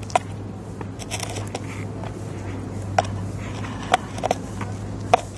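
Longboard deck and wheels knocking against hard dirt ground during ollie attempts: a handful of sharp, separate clacks, three of them close together near the end, over a steady low hum.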